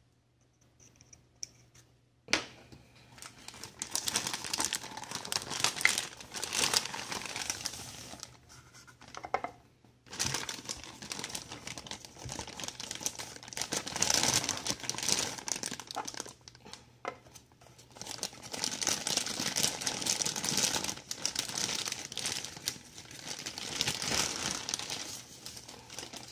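Clear plastic bag crinkling and rustling as a figure is pulled out of it. The rustling starts about two seconds in and comes in stretches, with short lulls about ten and seventeen seconds in.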